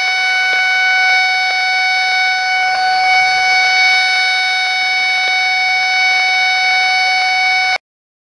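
AOR AR1000 scanner receiver's speaker giving a loud, steady, buzzy whistle of interference, which the demonstrator presents as Powerline radiation picked up once the shielding fabric is removed. It cuts off abruptly near the end.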